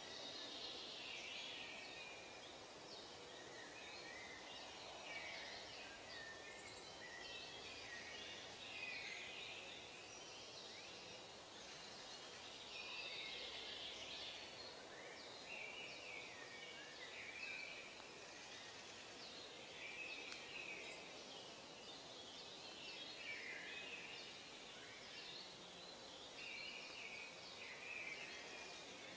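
Faint outdoor ambience: many small birds chirping irregularly over a steady background hiss.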